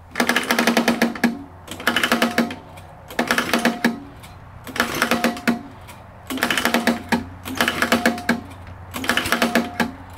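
Lawn mower engine being pull-started over and over, about seven pulls roughly a second and a half apart. Each pull is a quick whirring, clattering crank that never catches: the engine, shot through the block, will not start.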